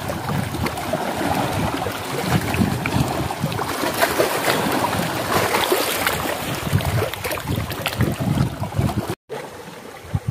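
Wind buffeting the microphone, over small lake waves lapping against shore rocks. The sound cuts out for a moment near the end and comes back quieter.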